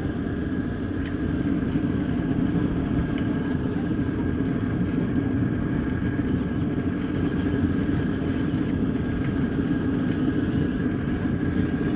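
Propane crawfish burner running at full flame under a boiling pot, giving a steady low rushing sound, with a couple of faint clicks.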